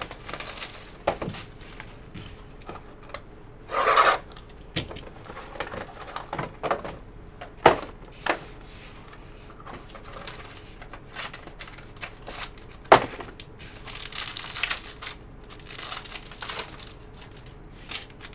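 Trading cards and their packaging being handled, heard as scattered clicks, taps and short rustles. There is a louder rustle about four seconds in and sharp clicks near eight and thirteen seconds.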